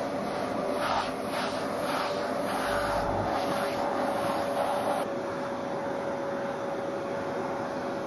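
Vacuum cleaner running with a steady whine, its hose nozzle worked through a husky's thick fur. For the first five seconds the sound swells and fades about twice a second with the strokes, then it evens out and turns duller about five seconds in.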